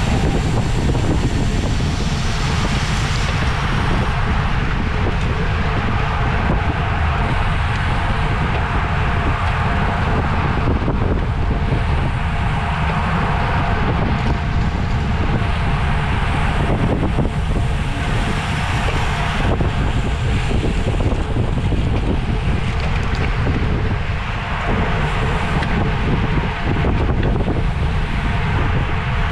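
Steady, loud wind buffeting on the microphone, a low rumble that swells and eases every few seconds.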